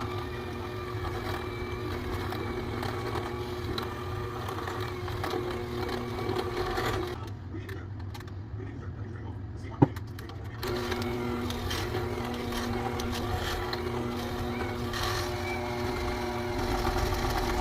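Electric mixer running steadily while mixing a glaze, stopping about seven seconds in and starting up again near eleven seconds, with a sharp click during the pause.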